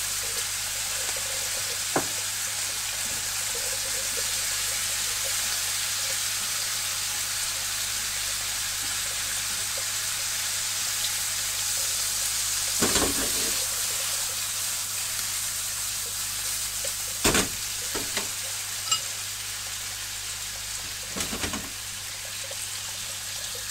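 Chicken skin and green pepper strips sizzling as they are stir-fried in a frying pan. Now and then a utensil knocks sharply against the pan, about four times. The sizzle grows slightly quieter toward the end.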